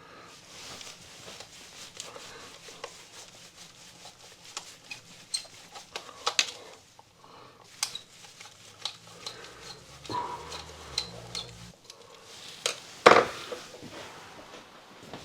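Irregular small clicks, clinks and knocks of hand tools and metal hardware being handled, with one much louder knock about thirteen seconds in.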